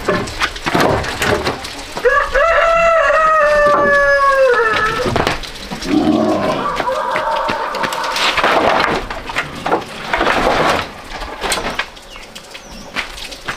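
A rooster crowing once, a long call of about three seconds starting about two seconds in that drops in pitch at its end, with scattered knocks and clatter around it.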